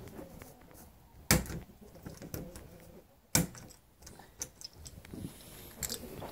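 A new door knob set being fitted through the bore of an exterior door and onto the latch: two sharp knocks about two seconds apart, with small clicks and rattles of the metal parts between them.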